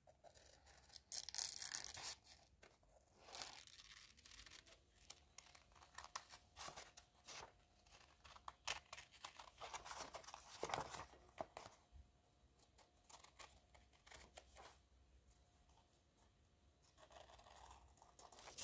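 Scissors cutting paper: a faint, irregular series of snips, busier in the first half and thinning out toward the end.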